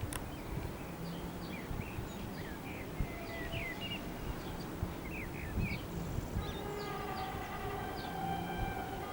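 Birds chirping over a low background rumble. About six and a half seconds in, a steady tone with several overtones comes in from the approaching 2ES4K electric locomotive and holds through to the end.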